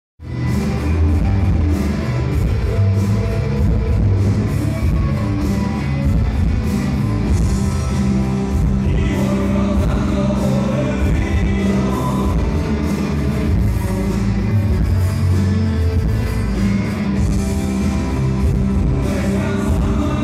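Music with singing and a steady beat, in a rock style.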